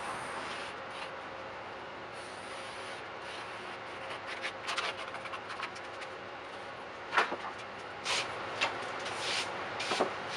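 Pencil scratching in short strokes as the outline of an old wooden rudder blade is traced onto marine plywood, with a few sharp wooden knocks in the second half as the old blade is shifted and lifted off the sheet.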